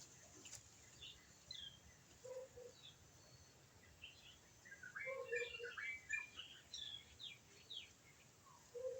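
Small birds chirping faintly, short high chirps scattered throughout and busiest a little past the middle, with a few short lower calls in between.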